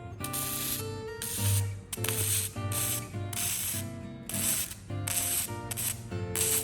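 Background music with steady pitched tones, overlaid by repeated short bursts of hiss, roughly twice a second and unevenly spaced.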